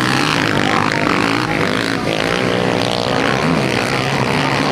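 Several motocross dirt bikes racing together, their engines revving, the pitches rising and falling against each other as the pack goes through the turn.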